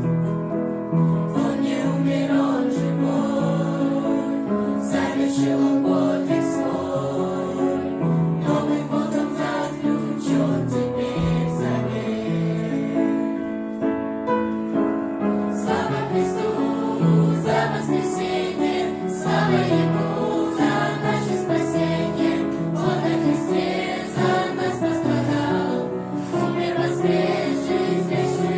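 Music: a choir singing a song with instrumental accompaniment.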